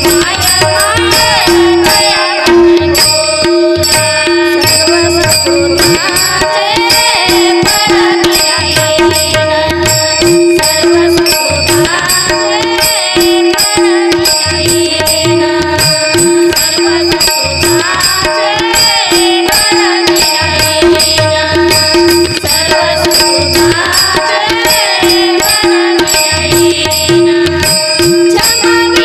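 Marathi devotional bhajan music in raga Bhairavi: a winding melodic line over a steadily pulsing accompaniment, with drum strokes keeping a regular rhythm.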